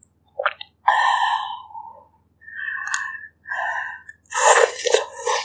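Close-miked eating sounds: a person slurping and sucking up hot bak kut teh broth in a run of about five short slurps, the last one the loudest.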